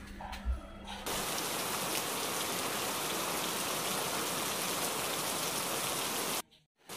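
A low thump about half a second in, then rain falling as a steady even hiss that starts abruptly about a second in and cuts off abruptly near the end.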